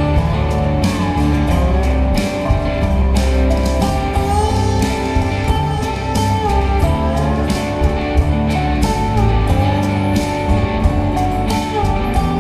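Background music: a melody with gliding notes over a steady bass line and a regular drum beat.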